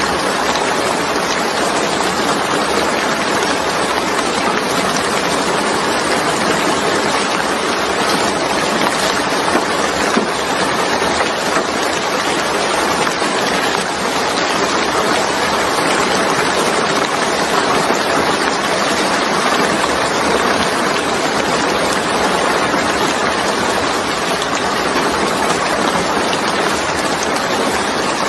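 Steady rain falling on wet, puddled ground: a dense, even patter of drops that holds at one level.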